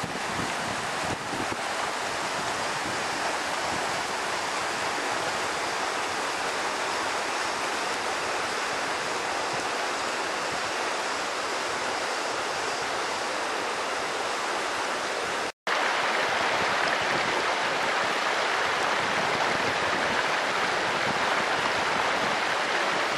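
Mountain stream running over stones, a steady rush of water. It breaks off for a moment about two-thirds of the way through and comes back louder.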